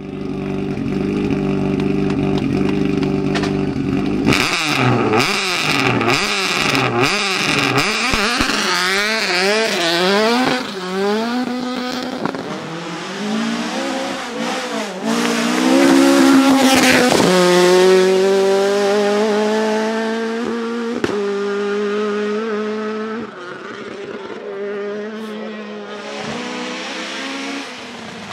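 Ford Escort Mk2 rally car's 2.5-litre Millington four-cylinder engine. It holds a steady note at first, then about four seconds in is revved hard up and down over and over. Later it pulls hard, rising through the gears, and fades near the end.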